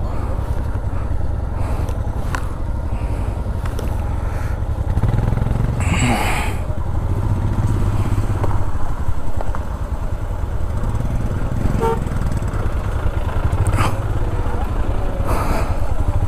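Royal Enfield Himalayan 411's single-cylinder engine running steadily under an off-road ride, with a few sharp knocks and a brief rush of noise about six seconds in.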